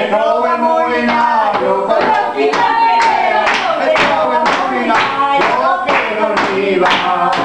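People singing a song in chorus, with hands clapping in time, about two claps a second.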